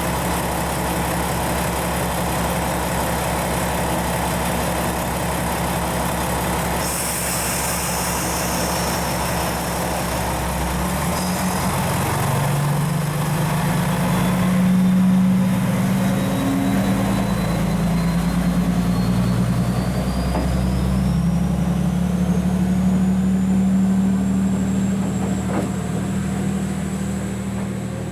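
KiHa 120 diesel railcar pulling away from a station: the engine idles, a hiss of air comes about seven seconds in, then the engine revs up and its note rises as the train moves off. A thin whine climbs in pitch midway, and the sound fades near the end as the railcar leaves.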